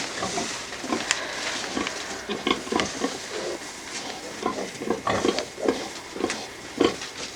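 Pigs moving about, with scattered short grunts over an irregular rustling and shuffling.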